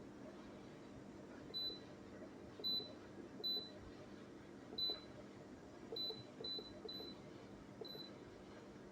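Eight short, high electronic beeps at irregular intervals, like keys being pressed on a control panel, over a faint low steady hum.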